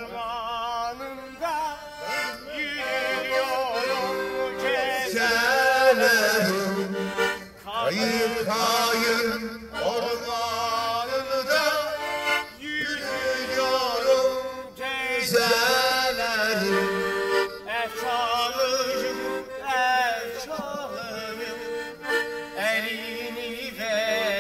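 Accordion playing a regional folk tune while a man sings along in a wavering voice, the song rising and falling in phrases with short breaks between them.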